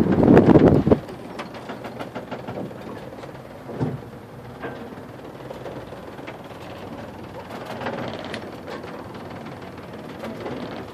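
Wind buffeting the microphone on the deck of a sailboat for about the first second. It then cuts to a much quieter, muffled low background inside the boat's cabin, with a few faint short sounds.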